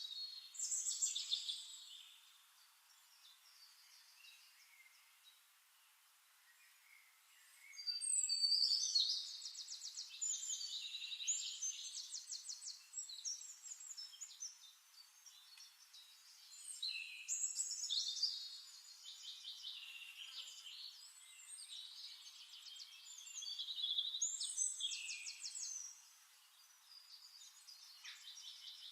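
A bird singing: phrases of quick trills and chirps, each a few seconds long, repeating about every seven or eight seconds, with quiet gaps between.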